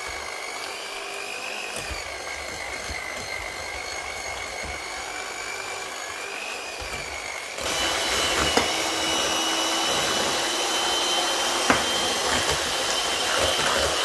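Moulinex electric hand mixer running, its beaters whisking soft butter into cooled pastry cream for crème mousseline. A steady motor whine that suddenly gets louder and higher-pitched about halfway through.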